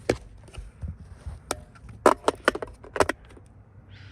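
Irregular sharp clicks and knocks, about a dozen, from batteries and a plastic battery compartment being handled while loading a weather radio.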